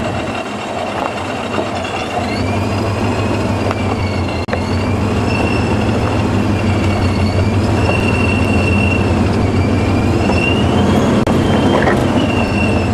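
Off-road 4x4 crawling down a steep rocky slope: the engine runs low and steady, and the tyres grind over rock and gravel. A high, thin squeal wavers slowly up and down in pitch throughout.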